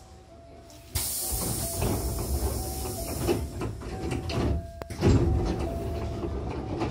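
Hankyu train's air-operated double sliding doors closing with a sudden hiss of air about a second in, then slamming back open with a second loud rush of air about five seconds in.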